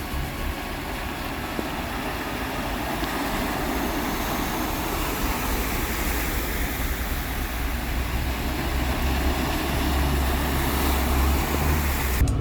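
A car driving, heard through a dashcam: a steady low rumble under an even hiss, slowly growing louder, with the hiss cutting off sharply near the end.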